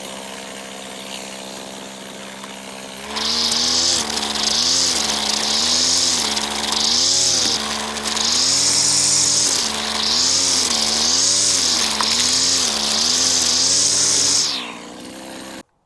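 Stihl FS85 two-stroke strimmer idling steadily at first, then throttled up and down again and again, about seven surges with a high whine, while strimming. The throttle drops off near the end.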